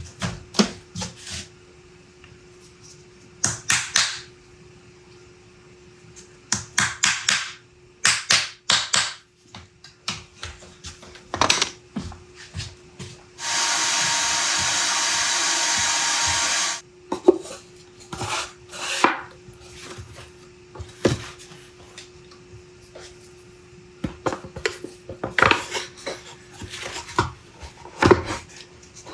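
Workbench handling sounds: wooden box parts and hand tools knocked, set down and shifted, with scattered clicks and scrapes. About halfway through, a steady hissing machine noise with a faint whine runs for about three seconds and stops. A faint steady hum sits underneath.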